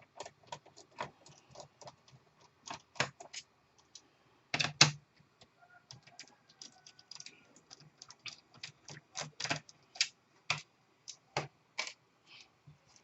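Irregular small clicks and taps of a screwdriver backing two screws out of a laptop's plastic bottom case, with a louder knock a little before five seconds in.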